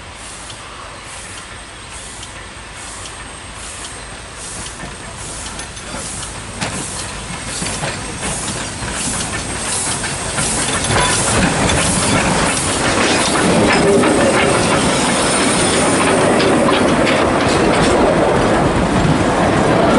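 Narrow-gauge steam locomotive approaching and passing close by, its exhaust beats coming about one and a half times a second and growing steadily louder. In the last seconds the coaches go past with the clatter of wheels over the rail joints.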